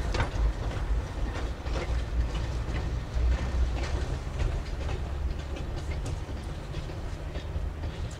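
A train of small narrow-gauge slate wagons rolling past, their wheels clicking and rattling irregularly over the rail joints above a low rumble.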